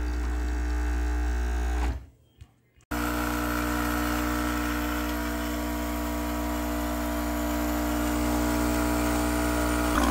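Nescafé Dolce Gusto capsule coffee machine's pump humming steadily while the clogged nozzle lets no water through. The hum cuts off about two seconds in, and after about a second of near silence it resumes, steady.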